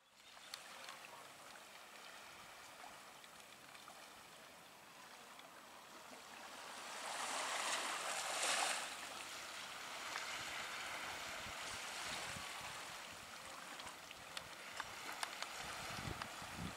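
Steady rush of wind and waves at the shore, swelling louder about seven to nine seconds in. Wind buffets the microphone in a few low thumps near the end.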